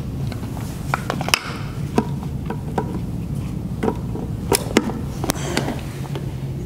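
Scattered clicks and knocks of electrical cables and connectors being handled and plugged back in to reconnect the actuator's power, over a steady low hum.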